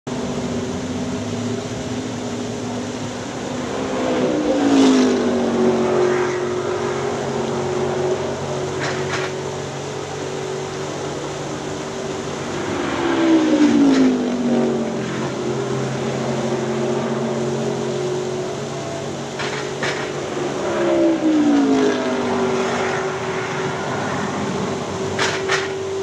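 NASCAR stock cars' V8 engines running on the track, with three cars passing in turn, each engine note dropping in pitch as it goes by, over a steady hiss of falling water from a fountain waterfall.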